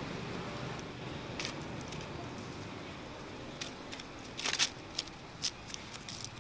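Dry leaves and grit crackling as macaques move and scuffle on the ground, in a cluster of sharp crackles about four and a half to six seconds in, over a steady low background rumble.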